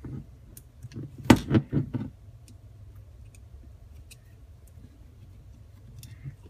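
Small metal-and-wood handling noises while grip screws are unscrewed from a 1911-style pistol with a screwdriver: one sharp click a little over a second in, a few quick knocks right after, then faint scattered ticks.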